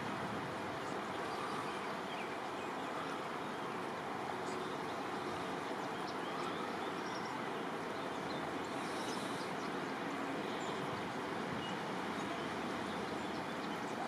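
Small creek flowing: a steady, even rush of running water, with faint short high chirps here and there.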